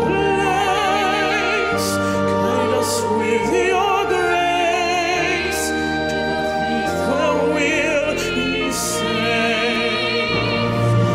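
Opera-style singing with wide vibrato over an orchestral backing track, part of a duet that pairs a pop voice with an opera voice.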